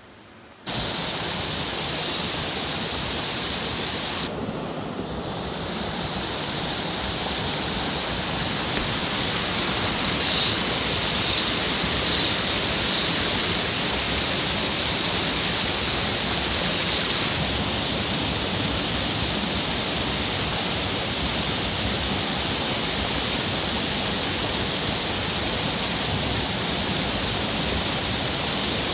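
Small mountain stream rushing over rocky cascades: a steady rush of water that starts abruptly about a second in.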